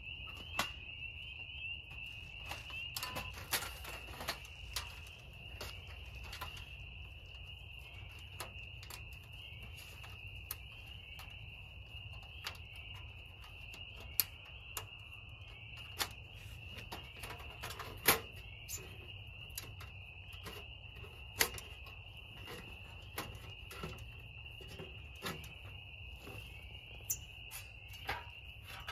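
A steady chorus of night insects, crickets trilling at one high pitch. Scattered sharp taps and clicks of thin metal stove panels being handled and fitted together cut in over it.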